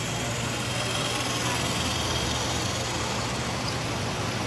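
Steady background hum and hiss with no distinct event: a constant low hum under an even hiss.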